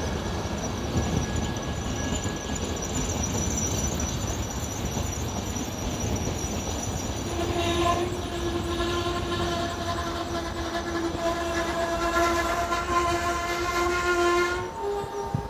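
Long passenger train of CFR coaches rolling slowly into the station: a steady rumble of wheels on rails with a faint high squeal. From about halfway a loud, steady squeal sets in and lasts some seven seconds, shifting in pitch just before the end.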